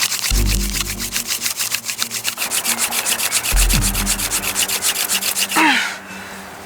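Friction-fire hand drill: a dry mugwort spindle spun rapidly back and forth into a poplar hearth board, giving a fast, even wooden rasping rub that stops suddenly near the end. The drilling raises smoke but no ember.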